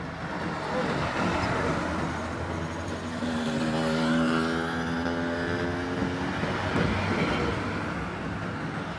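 Heavy truck passing close on the road, engine and tyre noise, with a steady droning note for about three seconds in the middle.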